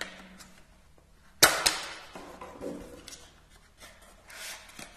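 Cardboard earphone box being opened by hand: a sharp snap about a second and a half in as the tucked end flap comes free, followed by cardboard rubbing and sliding, and another short rustle near the end.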